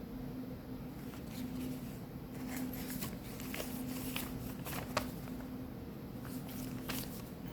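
Paper pages and loose ephemera of a handmade junk journal being handled and turned: soft rustles and light clicks, the sharpest a tick about five seconds in, over a steady low hum.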